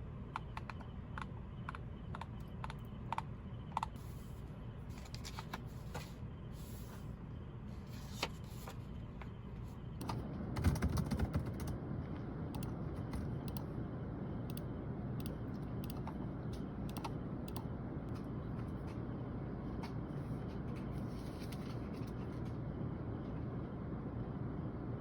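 Typing on a computer keyboard: irregular key clicks, quick and frequent at first, then sparser. About ten seconds in, a steady low rumble comes up under the clicks and stays.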